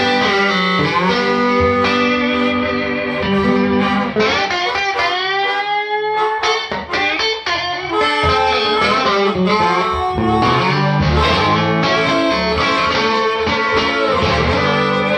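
Blues music led by electric guitar, with a long rising string bend about four to six seconds in.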